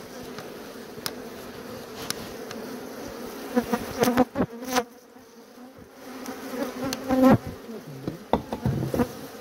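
Honey bee colony buzzing as a steady hum while its comb is opened up, swelling louder about four seconds in and again around seven seconds.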